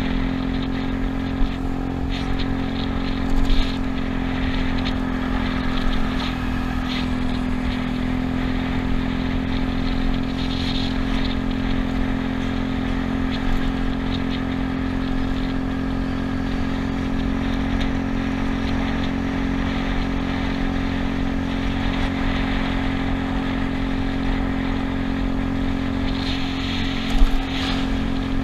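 Yamaha Cygnus scooter's single-cylinder engine running steadily at cruising speed, an even drone that holds one pitch throughout. A few short knocks come through about a second and a half in, at three and a half seconds, and again near the end.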